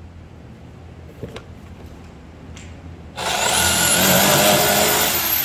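A couple of light clicks, then a corded electric drill starts about three seconds in. Its motor whine rises quickly to a high steady pitch as the bit bores into the edge of a plywood panel.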